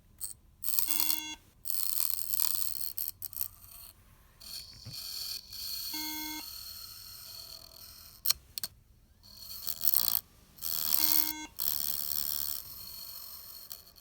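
MacBook Air beeping after power-on: one short electronic beep about every five seconds, three in all, the pattern a Mac gives for a memory fault. Loud bursts of hiss and rustling come in between the beeps.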